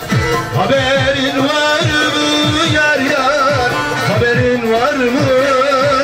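Live Turkish folk music: a wavering, ornamented melody over a steady beat of low drum hits, about two or three a second.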